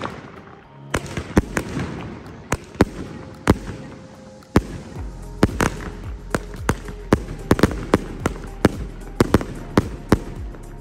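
A 30-shot "Hunter" aerial firework cake firing. Its shots crack off irregularly at first, then come quickly, several a second, from about halfway through.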